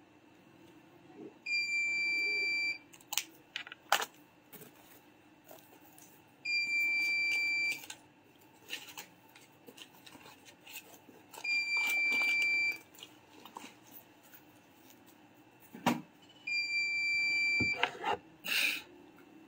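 Electronic buzzer beeping: four long beeps of one high pitch, each lasting a little over a second and repeating about every five seconds. Short clicks and knocks fall between the beeps, the loudest near the end.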